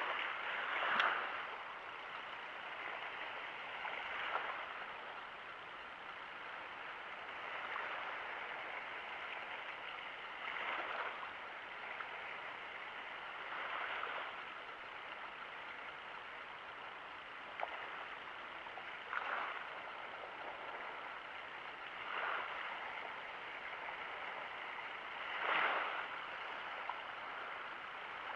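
Small waves lapping and washing at the shallow water's edge, a steady wash that swells softly every few seconds.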